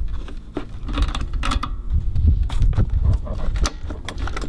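Pliers and a metal brake linkage clicking and rattling in irregular short knocks as the linkage is worked loose from a lawnmower engine, over a low rumble.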